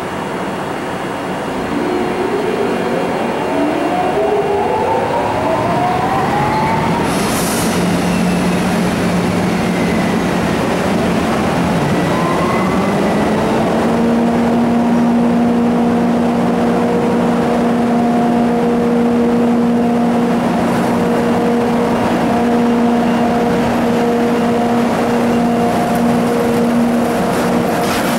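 Two EF64 1000-series electric locomotives pulling away with a freight train, their motors whining in rising tones as they gather speed. About halfway through, the whine settles into a steady hum with a few even tones. A brief hiss comes about seven seconds in.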